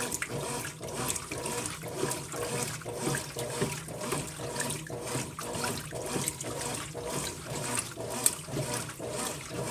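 Water sloshing and churning in the tub of a Brastemp Ative 11 kg top-loading washing machine washing a load of towels, in irregular surges over a faint steady hum.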